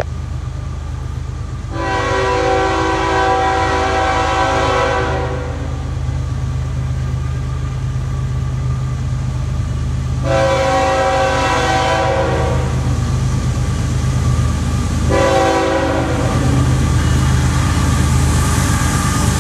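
CSX ES44AH diesel locomotive's air horn sounding the grade-crossing pattern: two long blasts, a short one, then a final long blast that is still going at the end. The train's steady low rumble runs underneath.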